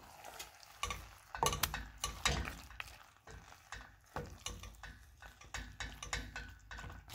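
Wooden spoon stirring rotini pasta with frozen peas and spinach in a stainless steel pan, with irregular knocks and scrapes against the pan.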